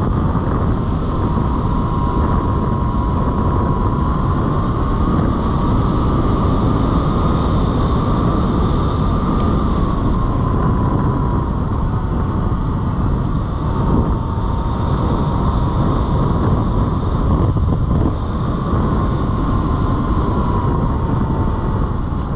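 Sur Ron Light Bee X electric dirt bike under way: the motor's thin whine rises and falls slightly with speed and drops near the end, over heavy wind rumble on the microphone.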